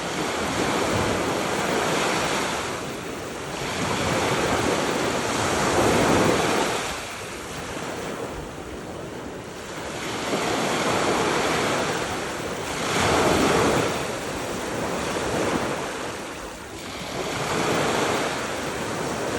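Gulf of Mexico surf breaking and washing up the beach, the rush swelling and easing every three to four seconds, with wind on the microphone.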